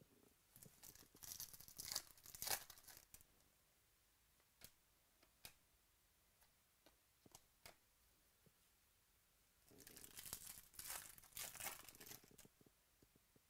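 Foil wrapper of a Bowman Chrome baseball card pack being torn open and crinkled, in two bursts: one about a second in and one near the end. A few light clicks come in between.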